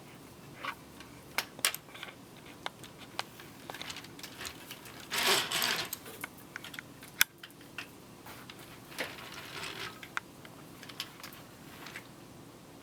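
Scattered light clicks and taps of toys being handled, with a short rustling clatter about five seconds in and one sharp click shortly after.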